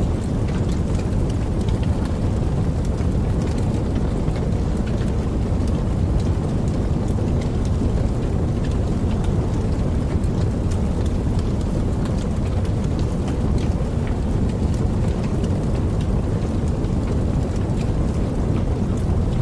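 Campfire crackling: a steady low rush of burning with many small sharp pops and snaps scattered throughout.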